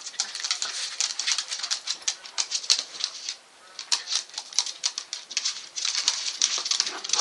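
A Staffordshire bull terrier and a Jack Russell terrier play fighting: a rapid, uneven run of claws clicking and scrabbling on a hard floor, with scuffling bodies.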